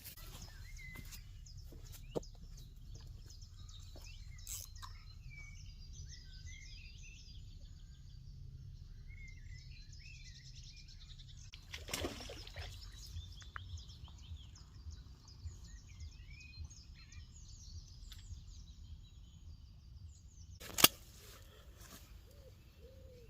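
Small birds chirping and singing continuously over a low steady rumble. There is a short swishing thud about twelve seconds in, and a sharp loud click near the end.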